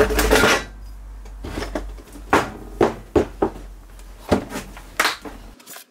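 Steel hammers and dollies clinking and knocking against a hard plastic tool case as tools are taken out and the lid is moved: a short clatter at the start, then about half a dozen separate clicks and clunks.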